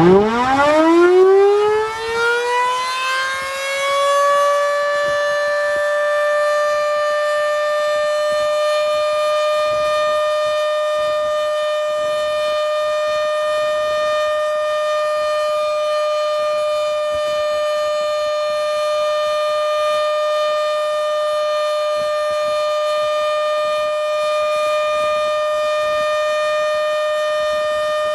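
Modified Federal Signal Model 7B outdoor warning siren winding up, its pitch rising fast over the first four seconds, then sounding a steady full alert tone of about 600 Hz.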